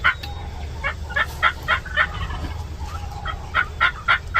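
Wild turkeys calling in runs of short, sharp, evenly spaced notes, about four a second, in two series.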